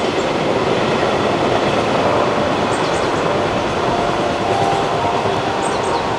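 Freight train wagons rolling past on the rails: a steady rumble and rush of wheels on track, with faint high wheel squeals now and then.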